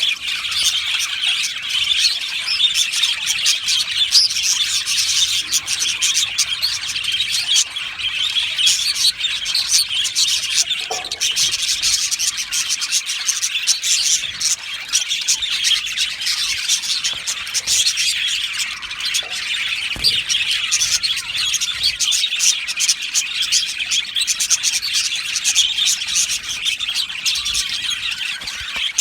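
A flock of budgerigars chattering and warbling together, a dense, continuous mass of quick chirps and trills.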